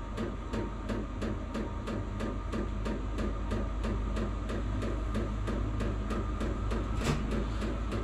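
Vevor diesel air heater running in its warm-up cycle: the fuel pump clicking steadily, about four times a second, over the continuous whir of its fan as combustion picks up.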